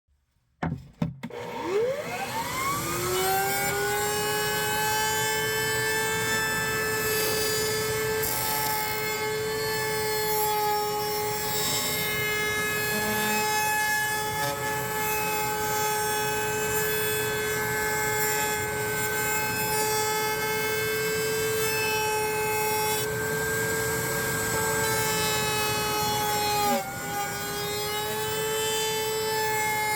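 High-speed router spinning up about a second in, then running at a steady high whine as it trims the edges of Kydex holster sheet, with a brief dip in pitch near the end as the load changes.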